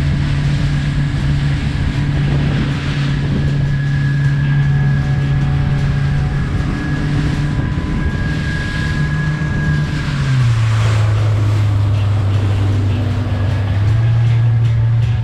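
Fishing boat's engine running under way over wash and wind noise; its note drops about ten seconds in as the throttle is eased back, then rises slightly near the end.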